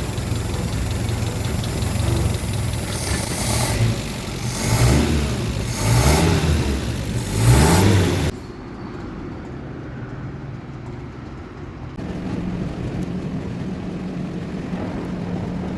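Old Mazda car engine running and being revved three times, each rev rising and falling in pitch. About eight seconds in, the sound cuts abruptly to a quieter, steady engine run, which gets slightly louder near the end.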